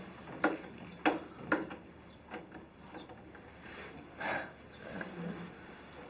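An old wood-cased CRT television set being handled: three sharp clicks about half a second apart, then a few fainter clicks and a brief rustle.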